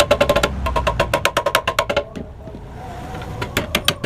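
Quick run of hammer blows on a metal motorcycle exhaust muffler, each strike ringing at the same few pitches. The blows stop about two seconds in, and a few scattered strikes follow near the end.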